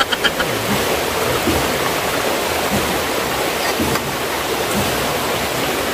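Steady rush of water flowing over a low dam and its rocks, an even, unbroken noise.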